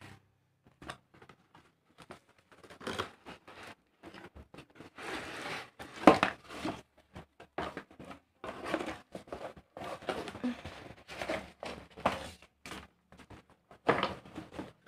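Cardboard box and plastic wrapping rustling and scraping as a plastic-wrapped machine in molded pulp end caps is slid out of the box by hand. The noises come in irregular bursts, with the loudest scrape about six seconds in.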